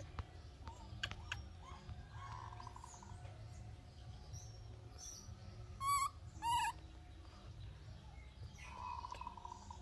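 Two short, high, pitched calls in quick succession about six seconds in, from a newborn baby macaque being bottle-fed milk. There are a few faint clicks near the start.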